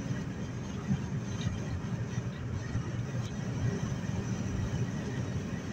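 Steady road and engine noise inside a car's cabin while cruising at highway speed, a low, even rumble with tyre hiss and no change in pace.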